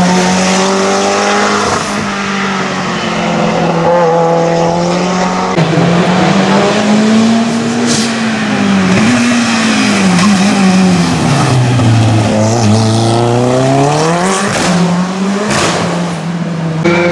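Hillclimb race cars' engines at full throttle, climbing through the gears, the pitch rising and dropping with each shift, then falling low and climbing steeply again. A couple of sharp cracks cut through.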